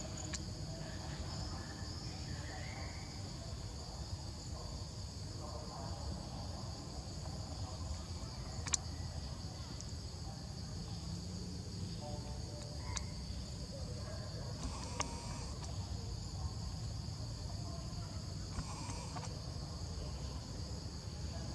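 Steady chorus of insects shrilling in several high-pitched bands, over a low rumble, with a few faint sharp clicks, the clearest about nine seconds in.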